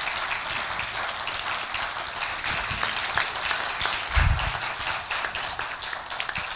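Audience applauding: dense, steady clapping, with a single low thump about four seconds in.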